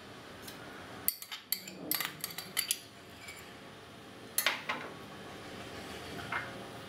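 Utensils clinking and tapping against dishes while grated ginger is added to a pan of water: a few short clicks about a second in, a quick run of them around two seconds, a louder pair past the middle and one more near the end.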